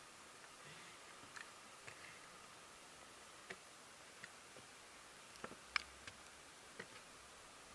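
Faint, scattered light clicks and taps over a quiet hiss, a few seconds apart, with the sharpest click near the end.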